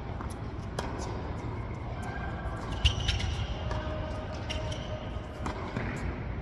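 Tennis balls struck by rackets and bouncing on the hard court during a doubles rally: several sharp pops, the loudest about three seconds in, over a steady low hum in the hall.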